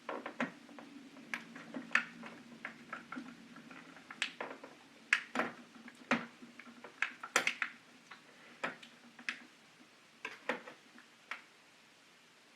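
Plastic case of a KeyTronic E3601 keyboard being pried apart by hand: irregular sharp clicks and taps as the brittle clips are worked loose, the loudest about five and seven and a half seconds in.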